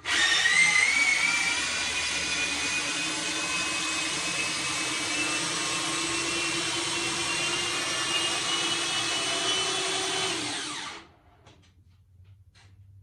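Corded electric jack's motor running for about eleven seconds as it lifts the race car: a steady whine that rises briefly at the start, sinks slowly in pitch under the load, then stops.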